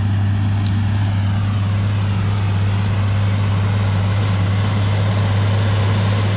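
Agcostar 8360 tractor's Cummins 14-litre diesel running steadily under load while pulling a vertical tillage tool, a constant low drone.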